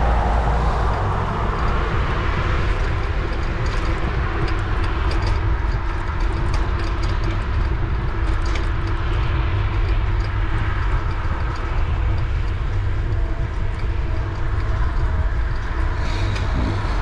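Steady wind buffeting on the microphone and tyre and road noise from a moving bicycle, with a run of light clicks in the middle.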